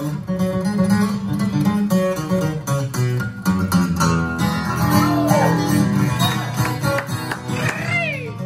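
Solo acoustic guitar fingerpicking a quick instrumental break: a steady run of plucked notes over a low bass line, with a few short gliding tones over it in the second half.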